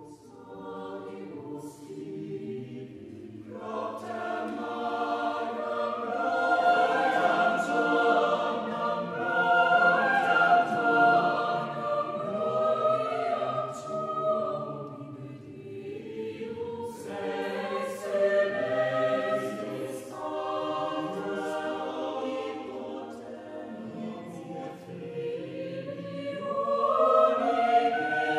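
Mixed chamber choir singing a cappella: sustained chords swell louder a few seconds in, ease off around the middle and build again near the end, with the sung consonants clearly audible.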